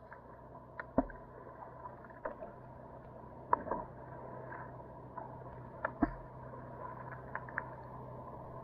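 Choppy sea water lapping, with a faint steady hum underneath. Sharp knocks come about a second, three and a half seconds and six seconds in.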